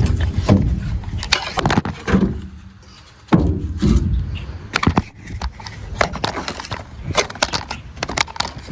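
Knocks, clicks and scrapes of a cardboard shipping box and its packaging being opened and handled, with one louder knock about a third of the way through.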